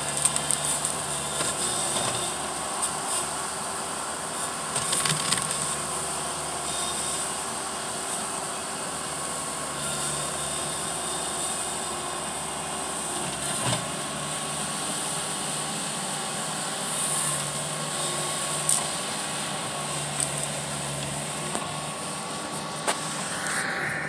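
Bobcat T190 tracked skid steer's diesel engine running steadily under load as it pushes against a tree, with a few short knocks along the way.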